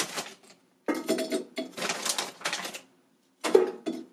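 Frozen breaded onion rings being set by hand into a Ninja Foodi air fryer basket, clattering lightly against the crisper plate and each other. The sound comes in three bursts of rapid clicking and crackling with short pauses between them.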